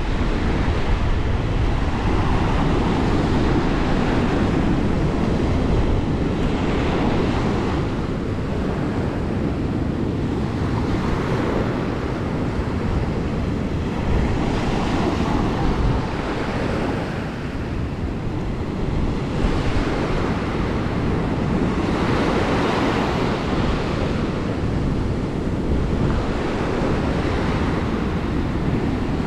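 Sea surf breaking and washing onto the shore, swelling about every four seconds, with wind rumbling on the microphone underneath.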